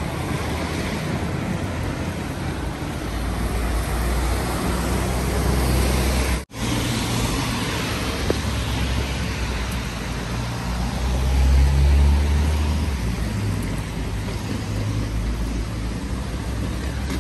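Road traffic on a wet street: cars passing with tyres hissing on the wet asphalt and engine rumble swelling as vehicles go by, loudest about twelve seconds in. The sound cuts out for a split second about halfway through.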